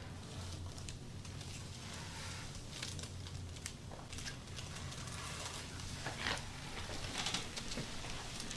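Hands-on work on a patient on a treatment table: irregular rustling with soft taps and clicks over a low steady hum, the loudest rustles about six and seven seconds in.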